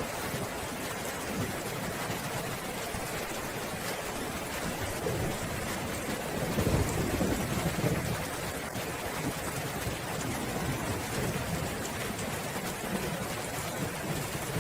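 Steady heavy rain falling, with a low rumble of thunder swelling up about halfway through and fading over a few seconds.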